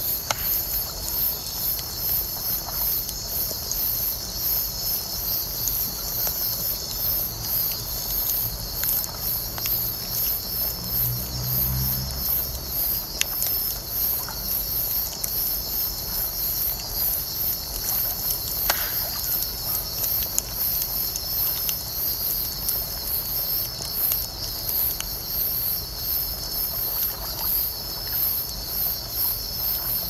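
Night insects chirping in a steady, rapid, high-pitched pulsing chorus, over the occasional sharp crackle and pop of a wood bonfire burning. A brief low rumble comes in near the middle.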